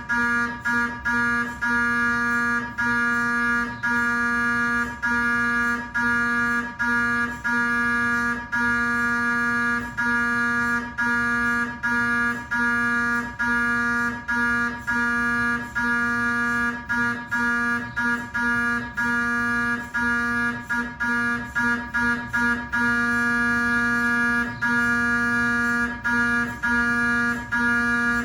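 GE 3T Twinspeed MRI scanner's gradient coils sounding a steady pitched drone during a cardiac scan sequence. The tone breaks off briefly about once a second, and the breaks come faster for a stretch past the middle.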